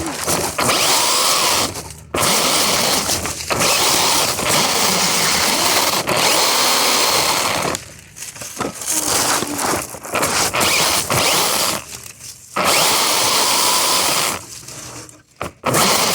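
Electric RC car motor and gear drivetrain whining at full throttle, with rolling noise, in spells of a few seconds that cut off briefly several times as the throttle is released.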